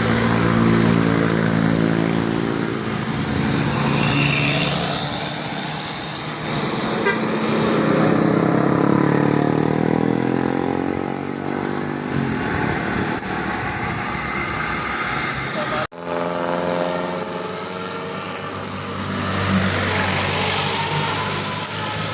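Bus telolet basuri horn playing a multi-note tune over a running bus engine, with people's voices mixed in. The sound drops out abruptly for an instant about sixteen seconds in, then resumes.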